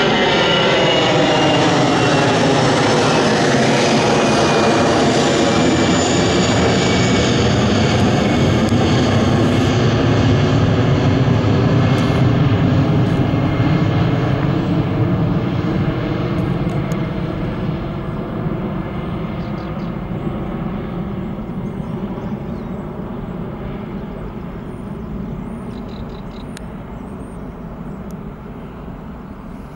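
Twin-engine jet airliner climbing out after takeoff and passing directly overhead: a loud jet rumble with a whine that falls in pitch as it goes by, then fading steadily as the plane climbs away.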